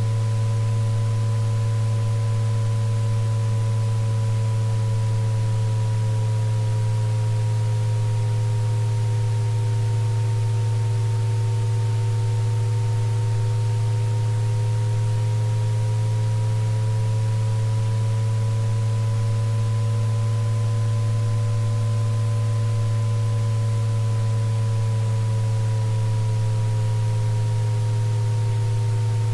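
Synthesized sound-therapy tones: a loud steady low tone with several fainter pure tones above it that slowly waver up and down in pitch, over a faint hiss.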